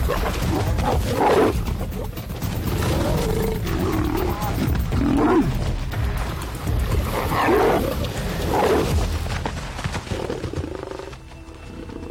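Two lionesses fighting, with repeated snarls and roars, over a film music score. The calls die down near the end while the music carries on.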